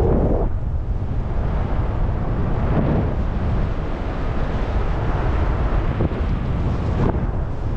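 Wind rushing over the camera microphone during paraglider flight, a loud, steady low buffeting from the airflow.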